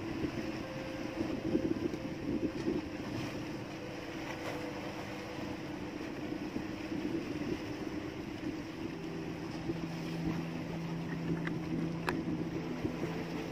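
Small engine aboard an outrigger fishing boat running steadily, a continuous hum; a lower hum joins about nine seconds in, and a light tick sounds near the end.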